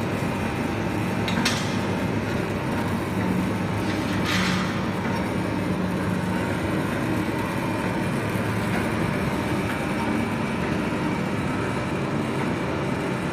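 Industrial coffee-bean grinding mill running with a steady mechanical rumble and hum. Two brief hisses break in about one and a half and four and a half seconds in.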